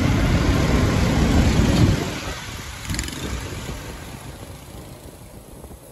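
Engine and road noise from a moving vehicle pulling away into street traffic. A loud low rumble over the first two seconds then fades steadily.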